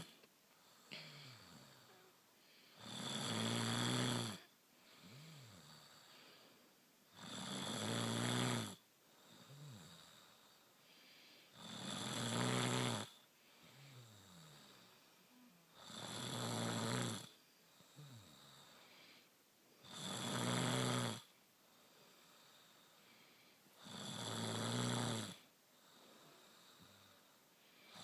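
A sleeping woman snoring steadily. A loud snore comes about every four seconds, about six in all, each lasting over a second, with softer breathing between them.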